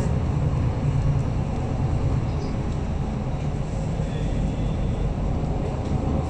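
Cabin noise of a MAN A22 single-deck bus under way: a steady low drone from the engine and drivetrain mixed with road and tyre noise.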